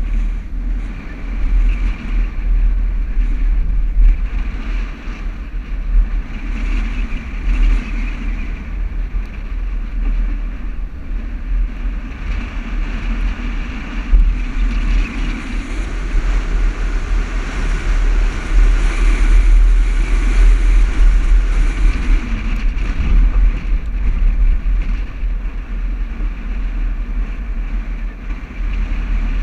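Toyota Land Cruiser driving over desert sand dunes: a steady engine and driving rumble with a deep low end, swelling louder around the middle.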